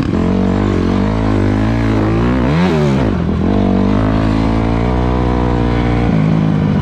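Onboard sound of an enduro dirt bike's engine while riding. It revs up and back down once about midway, holds a steady note, then settles to a lower note near the end.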